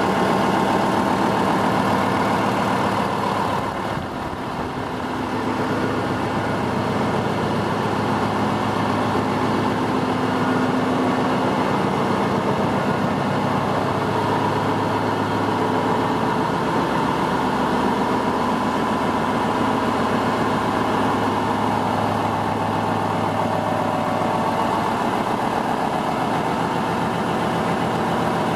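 Himsen Hyundai four-stroke marine diesel engine driving a ship's generator, running steadily with an even mechanical drone.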